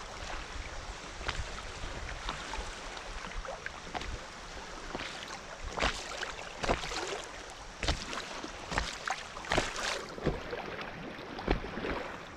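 Fast, high creek water rushing past an inflatable kayak, with choppy water slapping and splashing against the bow. The splashes come thicker and louder in the second half.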